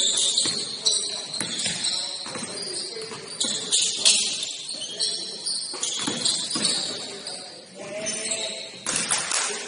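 Gym basketball game sounds: sneakers squeaking in short high squeals on the court, a basketball bouncing, and players' voices calling out, louder about eight seconds in.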